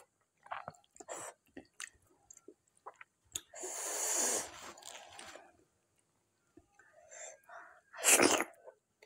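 Close-miked eating sounds from a woman eating curry and dhido by hand: small scattered mouth clicks of chewing, and a loud breathy rush of air lasting about two seconds around the middle. Near the end comes a short loud burst as a handful of food goes into her mouth.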